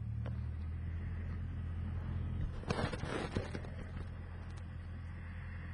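Cessna 172SP's four-cylinder Lycoming engine running at a steady low drone as heard in the cockpit. Around the middle comes a brief crackle of clicks and noise lasting about a second.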